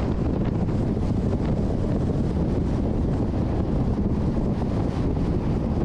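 Steady low road and wind noise of a car driving along, heard from inside the moving vehicle.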